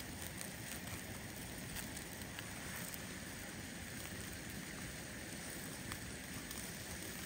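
Wood fire burning in a small folding fire-pit grill: a steady hissing rush with scattered sharp crackles and pops, and steaks sizzling on the grate over the flames.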